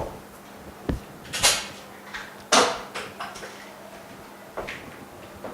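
Things being handled and set down: a few light knocks and clicks, with two short, louder scraping or rustling sounds about one and a half and two and a half seconds in.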